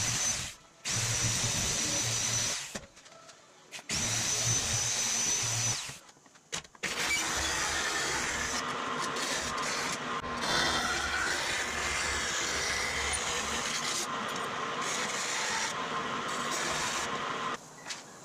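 A corded handheld electric sheet-metal shear runs in two bursts of about two seconds each, cutting .063-inch aluminum sheet, with a steady high whine. A bandsaw then cuts the aluminum for about ten seconds and stops shortly before the end.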